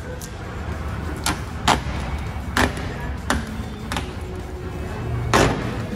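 Background music with a steady low bed and several sharp percussive hits at uneven spacing.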